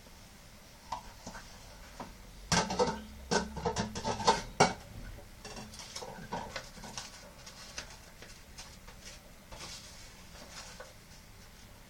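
Kitchen clatter of dishes and utensils being handled: a quick run of knocks and rattles for about two seconds, then scattered light clicks.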